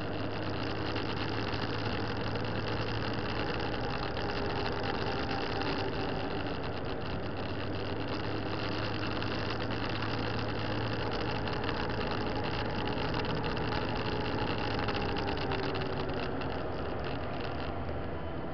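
Motorcycle engine running under way at a steady cruising pace, its pitch drifting gently up and down, over steady wind and road noise.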